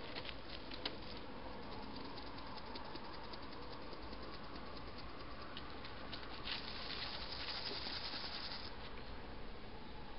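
A hedgehog moving over dry straw and leaves: scattered small crackles and clicks, with a louder two-second stretch of rustling about six and a half seconds in.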